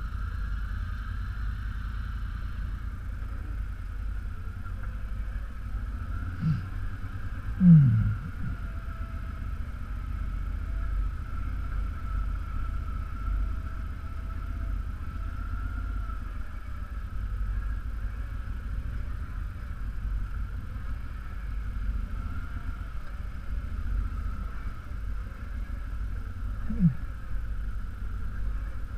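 ATV engine running steadily at low trail speed, a constant low rumble. A few short falling sounds cut across it, the loudest about eight seconds in.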